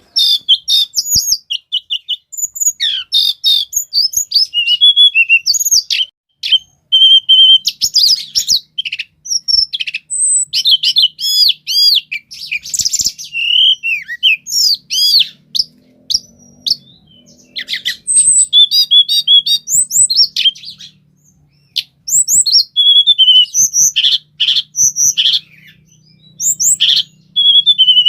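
A tledekan gunung (blue flycatcher) singing a long, rapid, varied song of high chirps, whistled notes and trills, broken by a couple of short pauses.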